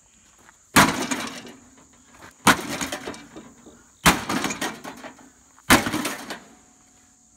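Sledgehammer smashing an old charcoal grill: four heavy strikes about a second and a half apart, each followed by clattering and rattling of the bent sheet-metal body and loose parts. Insects drone steadily in the background.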